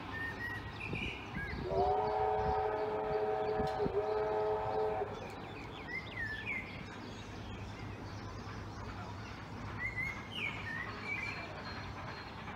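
A distant train whistle sounds a chord of several notes, held for about three seconds with a brief break near the end. Birds chirp a few times over a steady low rumble.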